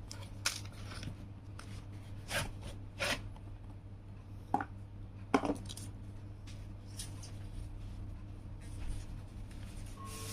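Irregular taps, scrapes and rustles of a battery's cardboard box and packaging being handled and opened, over a steady low hum.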